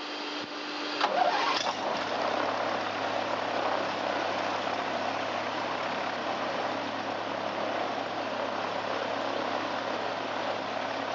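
Jabiru 3300 six-cylinder air-cooled aircraft engine starting: it turns over briefly, catches with a louder surge about a second in, then settles into a steady idle with the propeller turning.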